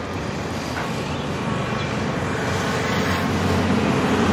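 A vehicle engine running with a steady low rumble, growing louder near the end.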